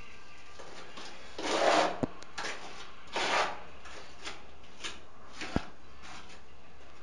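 Short scraping strokes of a hand tool along the edge of freshly laid ceramic wall tiles, about five in all, with two sharp clicks, one about two seconds in and one later on.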